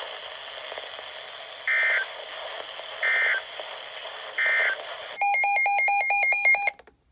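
NOAA Weather Radio EAS end-of-message signal: three short bursts of warbling data tones about a second and a half apart, over steady radio hiss. About five seconds in comes a second and a half of loud, buzzy electronic beeping that flips rapidly between two pitches and cuts off abruptly.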